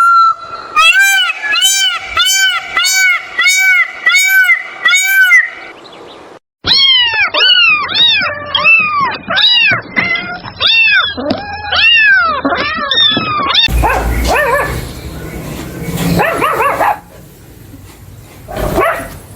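An animal giving short, high, rising-and-falling yelping calls about twice a second. After a brief break, a faster run of overlapping calls follows, as from several animals. From about two-thirds of the way in, a noisier, fainter stretch follows with only scattered calls.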